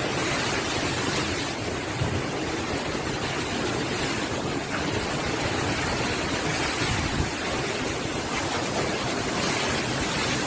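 Hurricane-force wind with rain: a steady, dense rush of noise with rough rumbling underneath.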